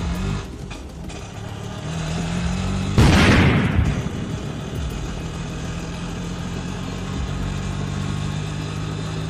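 Auto-rickshaw engine running steadily, heard from inside the passenger cabin. A loud noisy burst comes about three seconds in and fades within about a second.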